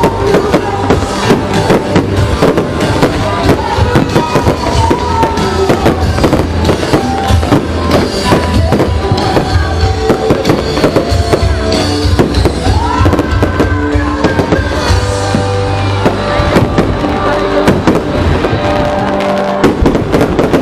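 Fireworks going off in a dense series of bangs and crackles, over loud music with a steady bass line.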